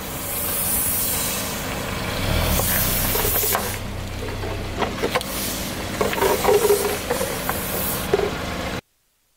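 Car tyre rolling slowly over a row of inflatable vinyl toys on asphalt: hissing bursts as air is forced out of the toys, with crackles and squeaks of the squashed vinyl, a low rumble of the car, and a sudden cut-off near the end.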